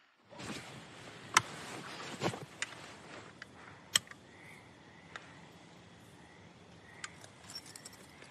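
Quiet background ambience broken by a few sharp clicks or knocks, the two loudest about a second and a half and four seconds in.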